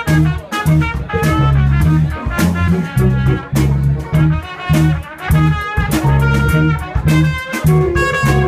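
Live band playing a jazz tune: trumpet and trombone horn line over electric guitar, a drum kit and a steady pulsing bass line.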